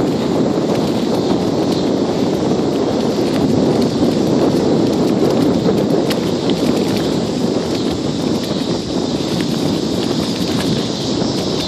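Bicycle riding along a rough path, heard from a phone on the handlebars: a steady rush of wind and tyre rumble, with frequent small clicks and rattles from the bumps.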